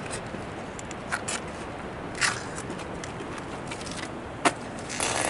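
Footsteps on a gritty rock overlook: a few scattered crunches and clicks over a steady outdoor hiss, with a louder scuffing patch near the end.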